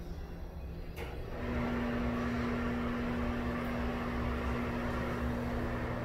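A wall switch clicks about a second in and a Broan ceiling exhaust fan starts, reaching full speed within about half a second, then runs steadily with an airy rush and a steady motor hum.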